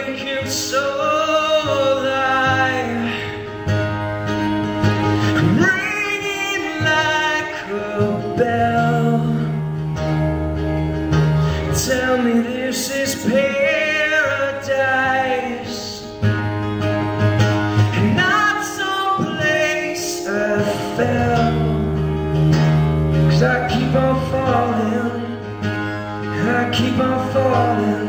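A man singing a song while strumming a steel-string dreadnought acoustic guitar, solo voice and guitar.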